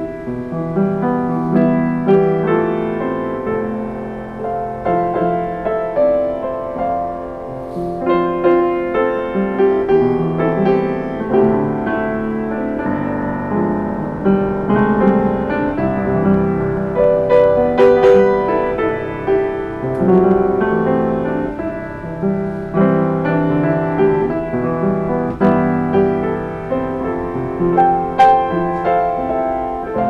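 Yamaha YU1 upright piano being played without a break, chords and melody notes sounding together.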